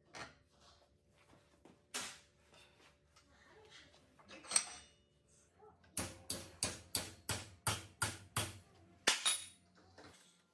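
Hammer striking a steel nail clamped in a bench vise: a quick run of about ten sharp metallic blows, roughly three a second, starting about six seconds in, the last one loudest. A few single clinks and knocks come first.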